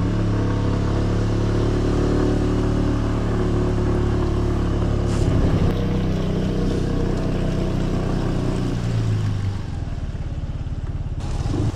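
Small motorcycle engine running at a steady speed under way, with a steady hiss underneath, then easing off and dropping in level about nine seconds in as the bike slows to a stop.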